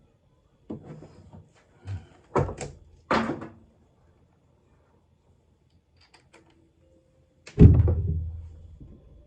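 Samsung front-loading washing machine's door being handled: a few short clunks and knocks, then one loud heavy thud about two-thirds of the way through with a short low ring-out as the door shuts.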